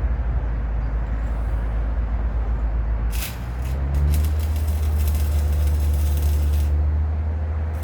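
An engine running, its pitch rising about three seconds in and then holding steady at a higher speed, with a hiss over it for a couple of seconds.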